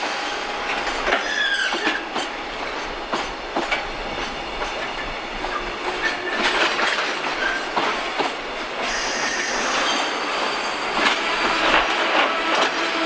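Container flatcars of a freight train pulling out and rolling past, their wheels clacking irregularly over the rail joints, with short wheel squeals now and then.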